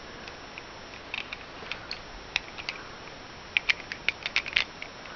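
Light plastic clicks and taps of Rubik's cube pieces being handled and pressed into a partly reassembled 3x3 cube: scattered at first, then a quick run of clicks about three and a half seconds in.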